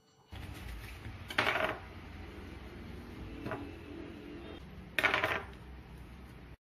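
Two short metallic clatters on a stainless steel plate as oranges are sliced into rounds on it. The first comes about a second and a half in, the second near five seconds, with a fainter tick between them. A steady low hum runs underneath.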